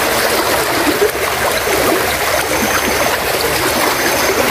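Floodwater running steadily, a constant even rush of flowing water.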